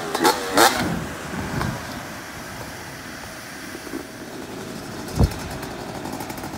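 Freestyle motocross bike's engine blipping sharply twice near the start, then fading to a low background drone. A single dull thump about five seconds in.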